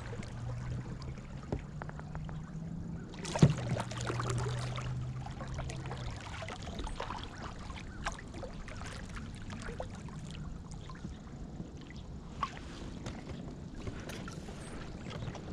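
Small fishing boat on the water: water lapping and small knocks on the hull, with a low steady hum for about the first six seconds that then stops. A sharp knock comes about three and a half seconds in.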